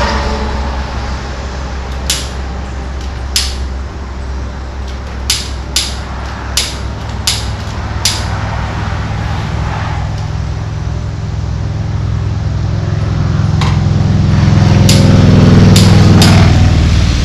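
Electric heat gun running with a steady motor-and-fan hum that swells louder over the last few seconds, while it shrinks heat-shrink tubing over a fishing-rod repair. About a dozen sharp clicks and taps are heard through it.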